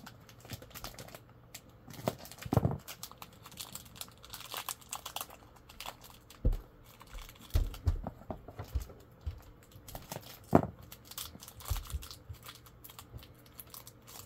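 Small collectible pins in their packaging being handled and opened by hand: irregular rustling and clicking, with a few louder knocks spread through it.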